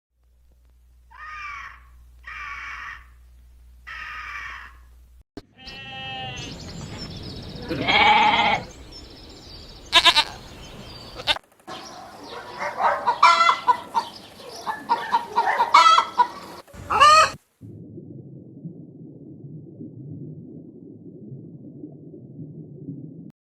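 A run of different animal calls, one short clip after another. First come three short calls about a second apart, then a longer stretch of calling with one loud cry in the middle, then many overlapping calls. The last six seconds hold a low, steady rumbling noise.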